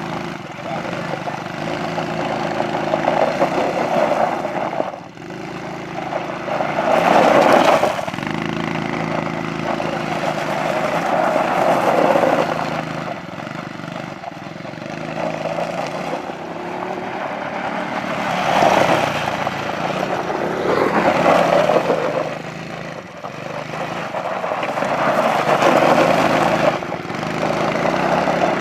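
Engines of 110cc CFMOTO CForce youth ATVs running hard, held on the rev limiter in their low-speed mode. The sound swells and fades every few seconds as the quads pass close and ride away.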